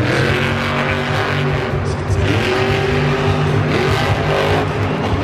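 Monster truck's supercharged V8 engine revving hard, its pitch rising and falling as the throttle is worked.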